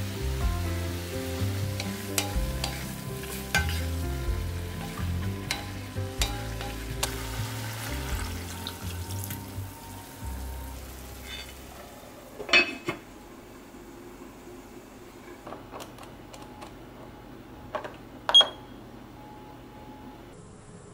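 Chicken and vegetables sizzling in an enamel pot over a gas flame as liquid is poured in, under background music that fades out about halfway. After that come light clicks and two sharp knocks, the second and loudest near the end with a short high blip.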